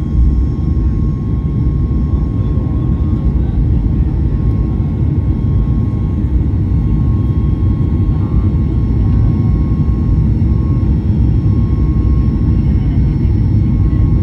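Cabin noise inside a Boeing 737-8 during takeoff and initial climb: its CFM LEAP-1B engines make a steady, loud low rumble, with a thin steady whine on top.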